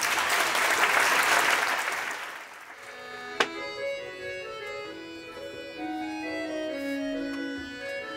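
Audience applause, fading out over the first two seconds or so; then, after a single sharp click, a solo accordion begins playing slow, held notes.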